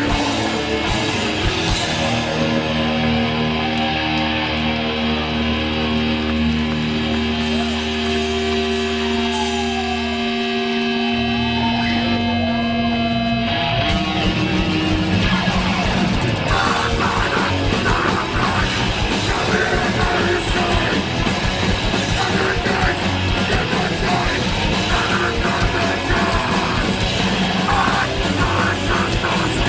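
Metallic hardcore band playing live through a PA: distorted guitars and bass hold long ringing notes with gliding feedback tones as one song ends. About fourteen seconds in, drums and distorted guitars crash in together to start the next song at full volume.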